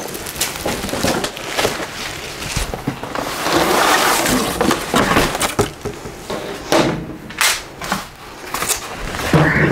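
Clear plastic bag wrapped around a toaster oven crinkling and rustling as the oven is carried and set down on a cardboard box, with scattered knocks and thuds of the appliance and cardboard being handled. The longest rustle comes in the middle, and there are sharper knocks later on.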